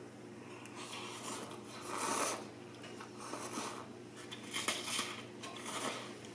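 A person slurping instant cup noodles and broth from a spoon, a series of about five short slurps, the loudest about two seconds in.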